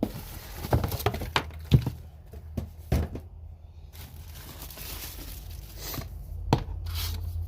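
Handling noise from unpacking a belt sander: packaging rustling, with several sharp knocks and clicks, over a steady low hum.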